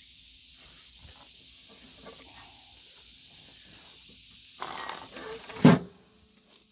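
Loose metal mower parts clinking together in a brief rattle, then one loud metal clank with a dull thud about a second later.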